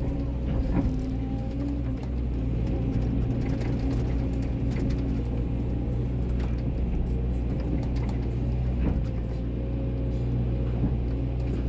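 Volvo 140DL hydraulic excavator's diesel engine running steadily under hydraulic load as the arm digs, swings and dumps soil, with scattered short knocks and scrapes from the bucket and falling dirt.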